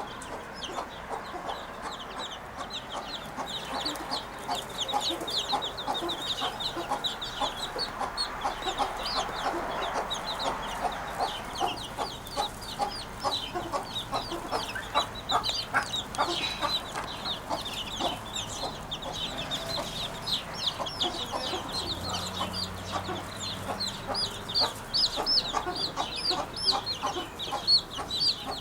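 Birds chirping in a dense, continuous chorus: many short high calls, several a second, over lower chattering, clucking-like calls.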